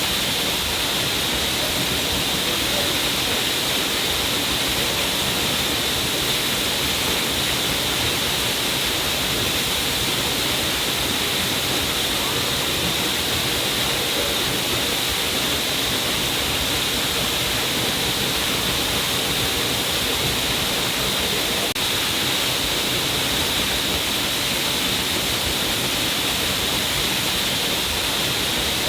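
Water from a stream pouring down a cliff face: a steady, even, hissing rush of falling and splashing water.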